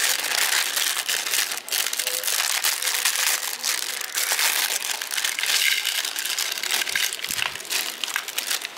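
Plastic Maggi instant-noodle wrappers crinkling and tearing as they are ripped open by hand and the dry noodle blocks pulled out, a dense, continuous crackle.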